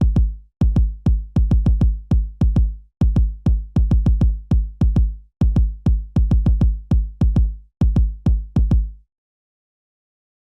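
Epic-style electronically produced music: deep, low drum hits in a driving rhythm, falling into repeating groups of quick strokes. The drums stop about nine seconds in.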